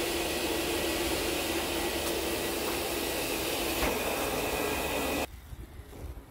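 Livestock grooming blower running steadily, its hose nozzle blowing air into a llama's fleece: a loud, even rush of air over a motor whine. It cuts off suddenly about five seconds in.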